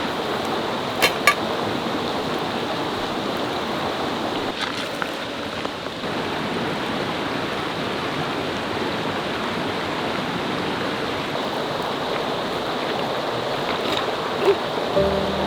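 Steady rush of water from a mountain stream and waterfall. Two sharp clicks about a second in, with a few fainter ones later.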